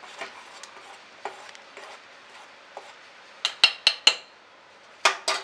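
Metal spoon stirring milk-and-rice kheer in a metal pot, with soft scrapes and light clicks. About three and a half seconds in comes a quick run of four sharp clinks of the spoon against the pot, then two more near the end.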